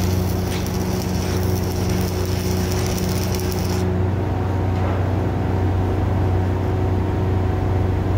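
Electric arc welding of steel joist bridging: the arc crackles and sizzles for about the first four seconds, then cuts off. A steady low hum runs underneath throughout.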